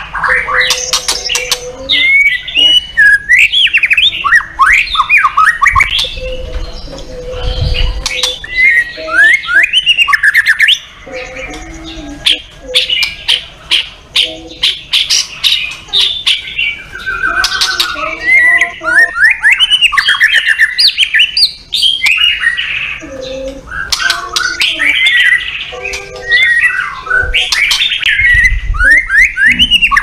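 White-rumped shama (murai batu) singing loudly: a fast, varied run of whistled rising and falling phrases broken by harsh, rapid rattling notes, with only short pauses.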